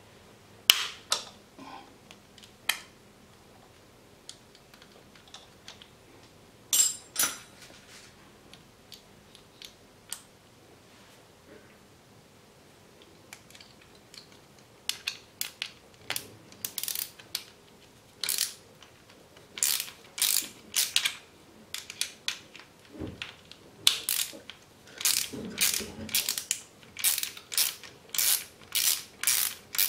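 Hand socket ratchet clicking as it is worked on a cylinder base nut of a Yamaha TDR250's two-stroke twin engine. A few scattered clicks come first, then from about halfway there are many short runs of ratchet clicking.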